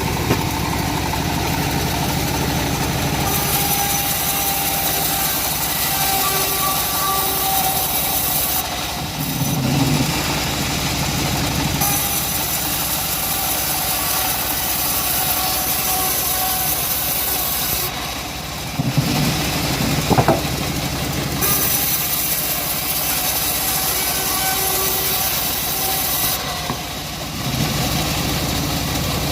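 Engine-driven wood saw running steadily, with a bright hissing cutting noise rising over the engine in three long passes, each lasting several seconds, as the blade works through the wood.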